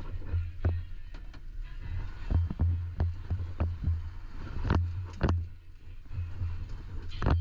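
A vehicle driving over rough ground, heard from inside the cab: a low, pulsing engine and road rumble with frequent sharp knocks and rattles. The strongest knock comes near the end.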